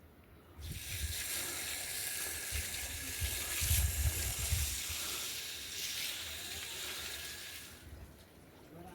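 Water running or splashing in a steady hiss that starts abruptly and stops about a second before the end, with a few low bumps underneath.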